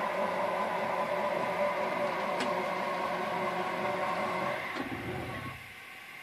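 Y-axis drive of a home-built CNC mill moving the table: the motor runs with a steady whine through a timing belt and ball screw. It gives a brief lower rumble about five seconds in, then stops about five and a half seconds in.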